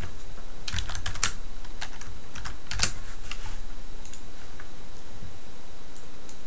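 Typing on a computer keyboard: a quick run of key clicks, most of them in the first three and a half seconds, then a few scattered clicks, over a steady hiss.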